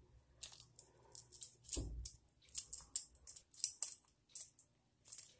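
Packaging being handled: a run of short, crisp crinkles and rustles, with a soft bump about two seconds in.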